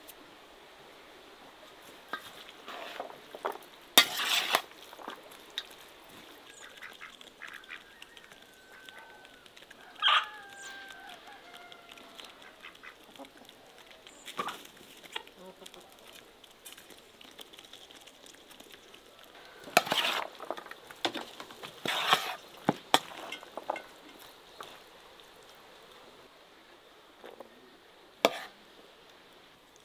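Farmyard poultry calling: several loud bursts of calls from domestic waterfowl among chickens and a turkey, with softer calls that glide in pitch in between.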